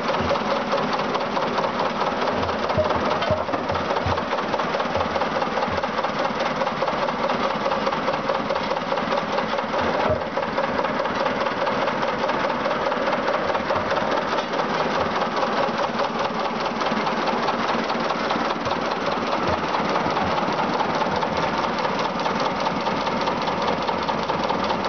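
Engine of an unrestored Richier VR5F road roller running steadily just after being started, with a fast, even firing beat.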